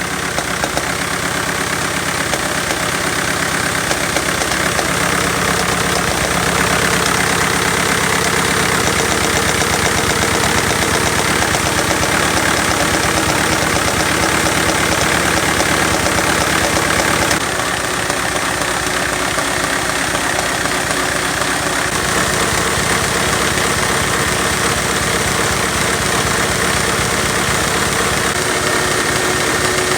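Lego vacuum-powered V8 engine running with a fast, steady clatter of plastic parts, with a knock that appeared after new lifters were installed. It drops slightly in level a little past halfway.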